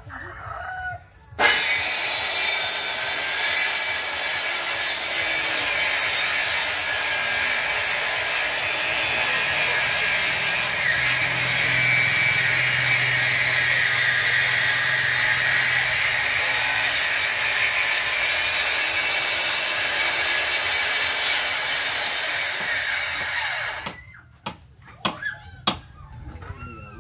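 Handheld electric circular saw ripping a wooden plank lengthwise, running steadily under load from about a second and a half in until it cuts off near the end. A few sharp knocks follow.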